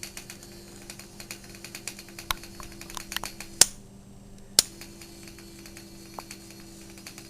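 Small vibrator motor, rewired to run straight off an electric wheelchair battery, buzzing steadily with a fast rattling tick. About three and a half seconds in a sharp click stops it briefly, and a second click about a second later starts it again, as from the toggle switch.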